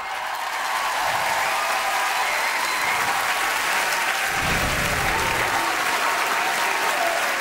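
Large studio audience applauding at the end of a performance, building up over the first second and then holding steady.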